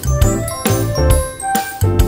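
Background music with a steady beat and bright tinkling notes.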